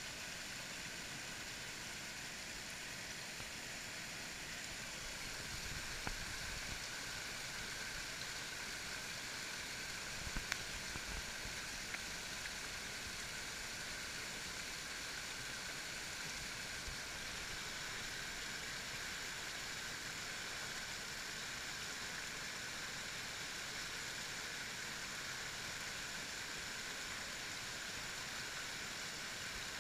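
Creek water spilling over low rock-ledge cascades, a steady rushing and splashing. A few brief low bumps come about ten seconds in.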